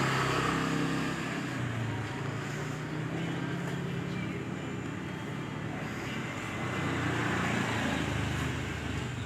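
An engine running with a steady low hum, growing a little louder near the end.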